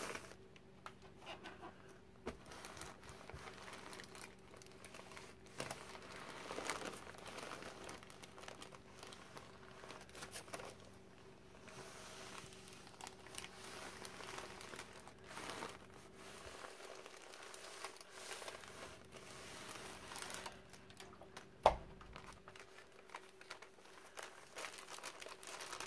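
Parchment paper rustling and crinkling faintly as hands smooth it flat and a clothes iron slides over it, pressing freezer-paper-backed fabric. A single sharp click near the end.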